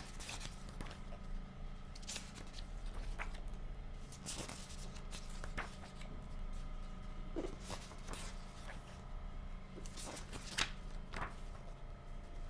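Pages of a thick softcover book being turned and flipped by hand: repeated short paper rustles and flutters, over a faint steady hum.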